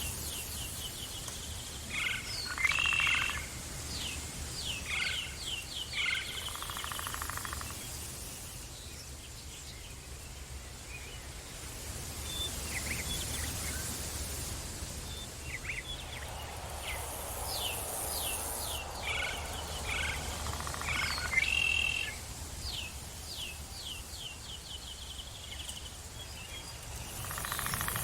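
Forest ambience: birds calling in runs of quick, falling chirps, with buzzy croaking calls among them over a steady low rumble. The same run of calls comes round again about fourteen seconds later.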